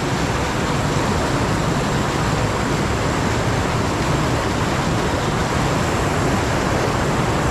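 Loud, steady rush of river rapids tumbling over rocks.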